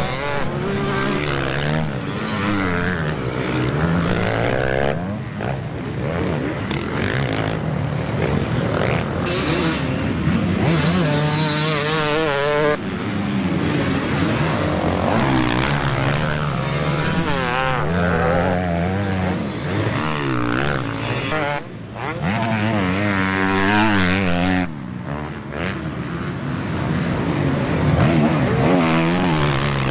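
Several motocross bikes racing, their engines revving up and down over and over as riders accelerate and shift, with bikes passing close by.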